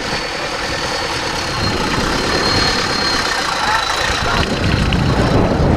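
Engine of an off-road 4x4 trial vehicle running steadily, with people's voices in the background.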